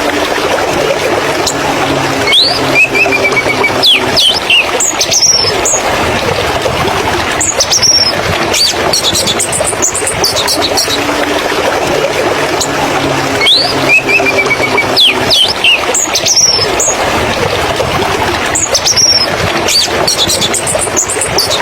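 Small songbird calls: thin, high chirps, quick up-and-down glides and a short run of repeated notes, coming in bursts over a steady rushing background. The same pattern of calls comes round again about eleven seconds later.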